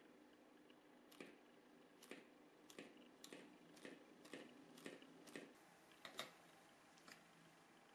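A series of faint, light taps and clicks on a tabletop, about ten of them at roughly half-second spacing, from hands handling small objects.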